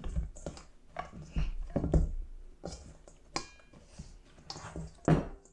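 Pastry dough being pressed and squeezed together by hand in a stainless steel mixing bowl, with irregular knocks and scrapes as the bowl shifts on the wooden bench; the loudest knock comes near the end, and a short high ringing note sounds about three and a half seconds in.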